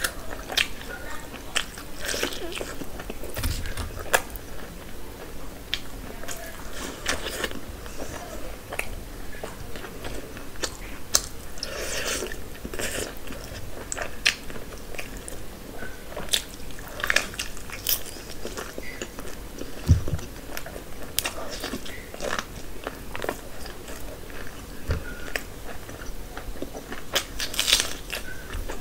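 Close-miked chewing and biting of curried meat and puri eaten by hand, with irregular sharp mouth clicks and smacks.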